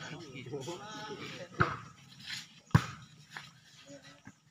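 A volleyball struck by hand twice, about a second apart: two sharp slaps during a rally. Players' voices call out around them.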